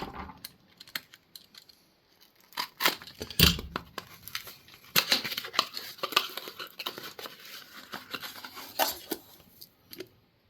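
Packaging being torn open by hand: irregular tearing, crinkling and sharp clicks as a delivered oil filter is unpacked.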